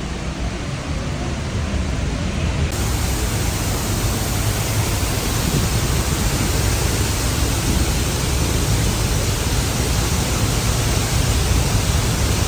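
Water from a dam release cascading over the spillway, heard up close as a loud, steady rush with a deep rumble. About three seconds in, the hiss grows sharply brighter and the rush gets a little louder.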